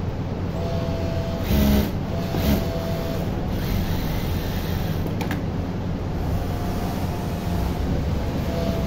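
Industrial sewing machines running on a garment-factory floor: a steady machine din, with the nearby machine's motor whining in short runs of about a second, several times, as it sews. A sharp click about five seconds in.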